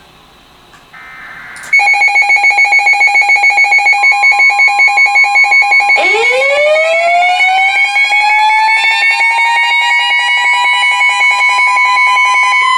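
A loud electronic alarm tone pulsing about six times a second starts about two seconds in, and a steady higher tone joins it a couple of seconds later. About six seconds in, a siren winds up from a low pitch, rising and levelling off as it reaches full speed, then starts to wind down right at the end.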